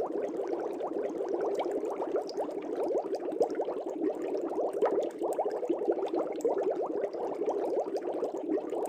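Air bubbles streaming up through fish tank water, a dense, continuous bubbling and gurgling made of many small quick pops.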